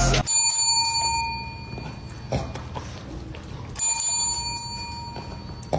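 A small bell rings twice, about three and a half seconds apart, each ring fading out over a second or so.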